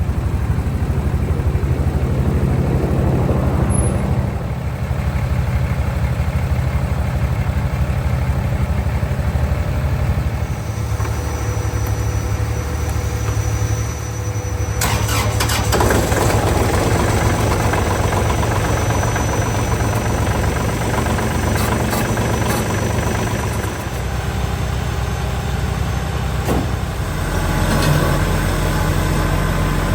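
Vehicle engine running steadily. Halfway through, a rattling, clicking sound joins it, and near the end the low engine tone deepens.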